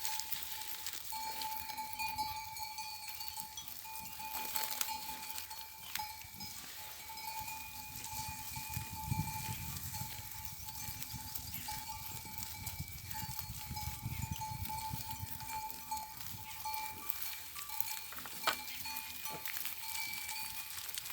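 Bells worn by grazing livestock ringing almost continuously in a steady clanking tinkle. A lower, rougher sound comes and goes through the middle.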